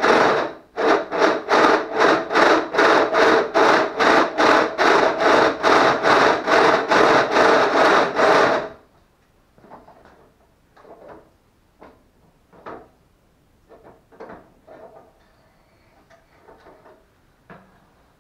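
Rhythmic scraping strokes of a tool boring through the internal baffle of a stock Honda CBR1000RR exhaust silencer, about two and a half strokes a second. The scraping stops about eight and a half seconds in, leaving a few faint knocks.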